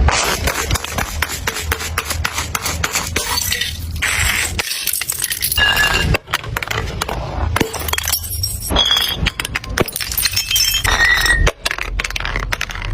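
Glass bottles being crushed and breaking: a dense, continuous crunching and cracking of glass with clinking shards and brief ringing glass tones. There are two short breaks, about six seconds in and near the end.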